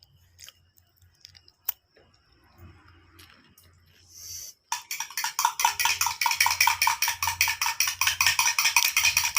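A metal spoon stirring in a glass, clinking quickly and evenly, starting about halfway through and going on without a break. A few faint clicks and a short hiss come before it.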